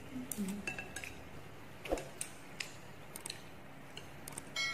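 Light clicks and taps of plastic chopsticks against a ceramic plate of fried noodles, scattered and irregular. A ringing chime starts at the very end.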